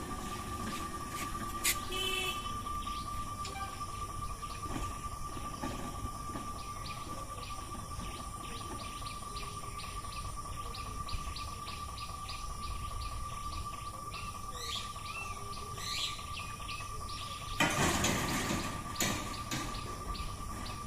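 Birds chirping over a steady high-pitched tone and outdoor background noise, with a burst of louder rushing noise near the end.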